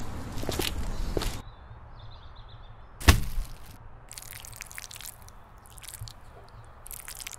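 Rustling, scraping noise for about the first second and a half, then a single sharp thud or crack about three seconds in, the loudest sound. Faint bird chirps and a few light clicks follow.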